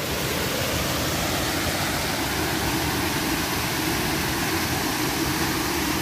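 Water pouring over a low weir waterfall into a shallow pool: a steady rush.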